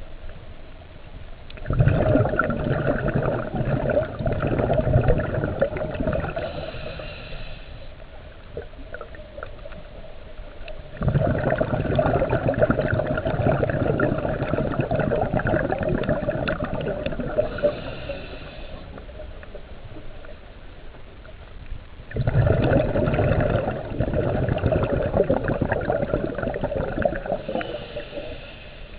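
Scuba diver breathing through a regulator underwater: three long exhalations of rushing, gurgling bubbles, each about five seconds and about ten seconds apart, each followed by a short hiss from the regulator.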